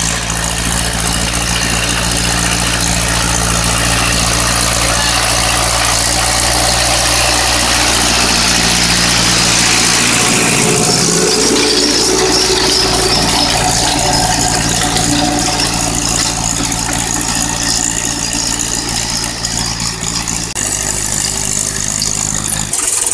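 Ursus C-360 tractor's four-cylinder diesel engine running steadily under load while pulling a mounted plough through stubble. The engine's pitch and tone change abruptly about eleven seconds in and twice more near the end.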